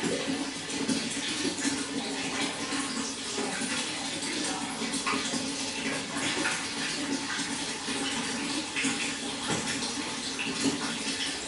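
Water running and splashing steadily into a fish pond, an even, unbroken trickle and patter.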